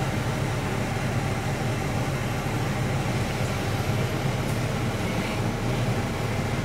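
Steady low engine drone and road noise of a double-decker bus, heard from inside its upper deck.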